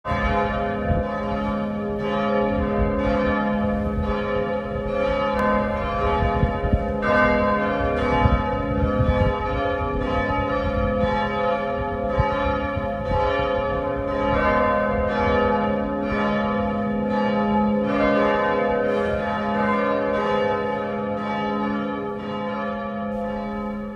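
Church bells ringing a continuous peal, strokes following one another steadily with their ringing tones overlapping.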